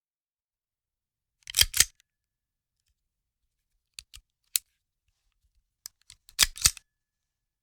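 Handgun being handled, its metal parts clicking and clacking: a loud double clack about a second and a half in, three lighter clicks around four seconds in, and another loud cluster of clacks near the end.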